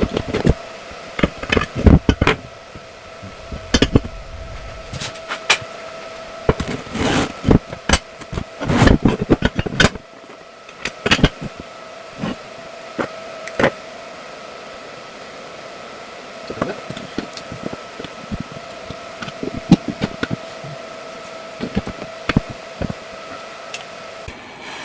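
Irregular knocks, clanks and clicks of steel parts being handled and set up for welding, some in quick clusters, over a steady machine hum that cuts off near the end.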